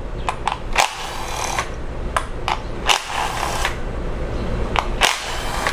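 Power ratchet with a 10 mm socket running in several short bursts as it backs out the ignition-coil bolts, with sharp clicks of metal on metal between the runs.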